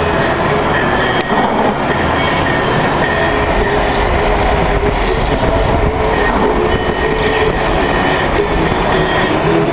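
Storm-force wind roaring steadily through palm trees and buffeting the microphone.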